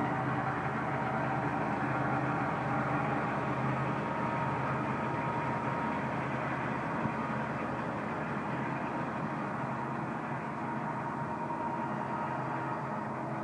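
Wells Wellcutt secondary stone saw running, its large water-cooled circular blade cutting through a stone block: a steady machine drone with a thin whine from the blade.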